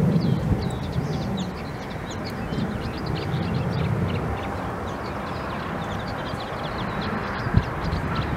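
Distant low rumble of a Boeing 787-9's jet engines as the airliner taxis onto the runway, with small birds chirping over it in quick short calls.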